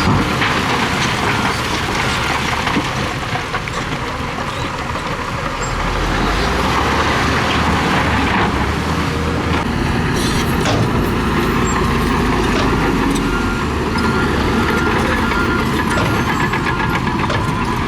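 Bulldozer's diesel engine running steadily under load while it pushes gravel, with a few sharp metallic clanks about ten seconds in and again near the end.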